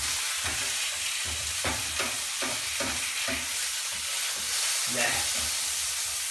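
Sausages and burgers sizzling in a frying pan, with a plastic spatula scraping and tapping against the pan as the meat is turned and stirred, a stroke about every half second.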